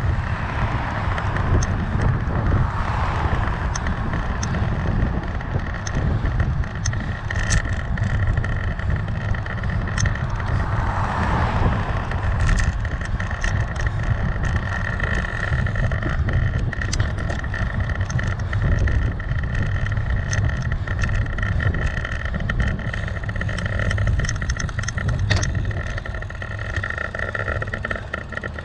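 Wind rush and road noise on a bike-mounted GoPro riding along a road, with passing cars swelling and fading a few times. A steady whine joins about halfway through.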